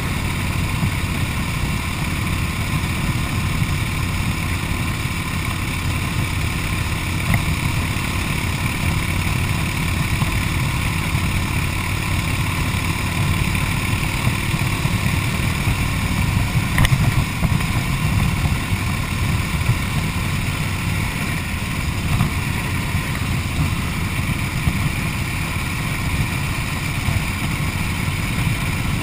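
1929 Harley-Davidson JDH two-cam V-twin engine running steadily at road speed while the motorcycle is ridden.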